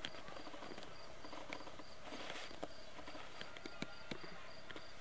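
An insect chirping in a steady, high-pitched pulse, about four chirps a second, with scattered sharp clicks.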